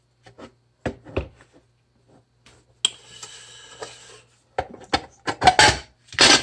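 Handling noise as a package and the used boiler water feeder inside it are moved about: a series of short knocks and clatters, with a rubbing scrape about three seconds in that lasts a little over a second.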